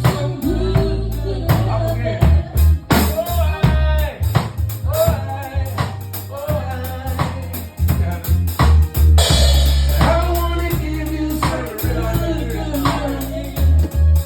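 A band playing a song: a heavy bass line and drum kit, with a singing voice or lead instrument over them.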